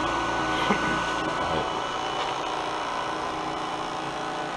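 Professional electric cotton candy machine running, its motor spinning the heated head with a steady whir.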